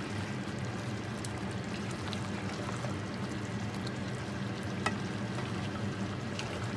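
Thick tomato stew simmering and bubbling in a pot while being stirred slowly with a plastic spoon, with a few light clicks of the spoon against the pot, over a steady low hum.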